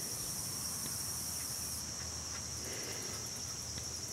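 Steady high-pitched insect trilling in the background, with a few faint clicks.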